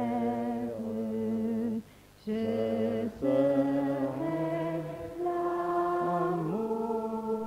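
Voices singing a slow hymn refrain without accompaniment, in long held notes that step from one pitch to the next, with a short pause for breath about two seconds in and another about three seconds in.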